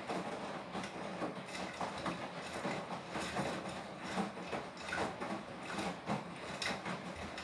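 Beko WTK104121W washing machine drum tumbling a load of dark washing during a Quick 40 wash, a continuous run of irregular knocks and clatter with no steady motor whine.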